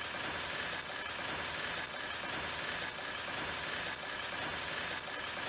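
Cartoon sound effect of a pedal-powered bicycle generator running: a steady mechanical whirring from the pedalled wheels and drive belt.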